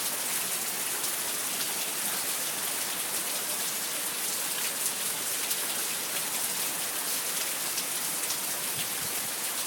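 Heavy thunderstorm rain falling steadily: a dense, even hiss with scattered ticks of drops landing close by.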